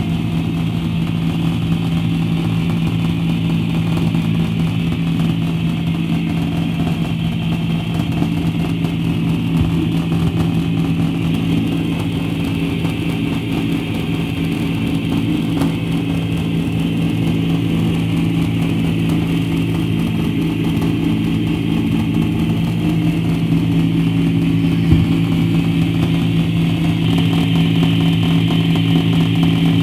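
Live electronic noise music from a laptop-and-mixer setup: a steady, unchanging low drone with a hissing upper layer, slowly getting louder.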